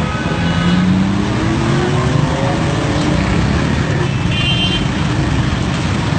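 Busy street traffic with motorcycle and car engines running close by. An engine note rises over the first couple of seconds, and a vehicle horn gives a short toot about four and a half seconds in.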